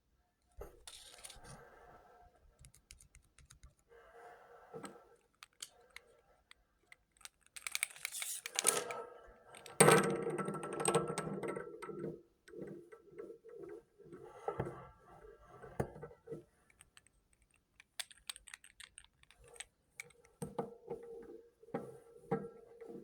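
Hands handling blind-bag packaging and small toys: plastic crinkling and rustling with small clicks and taps, loudest for a few seconds in the middle.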